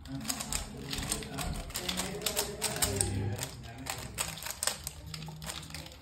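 Rapid, irregular plastic clicking and clacking of a stickerless Rubik's cube being turned quickly during a solve, several turns a second.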